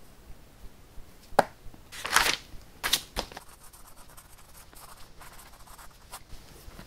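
Paper rustling from a spiral notebook as its page is moved to a fresh sheet: a sharp click about a second and a half in, then a few quick swishes. After that comes the faint scratching of a pen writing on the paper.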